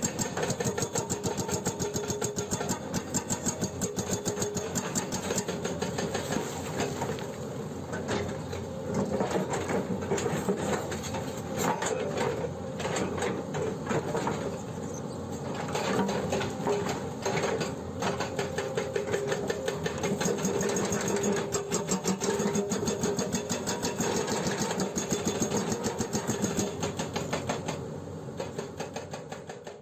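Hydraulic breaker on a Hyundai 210LC-7H excavator hammering rock in a rapid, steady run of blows, over the excavator's engine; the sound fades away near the end.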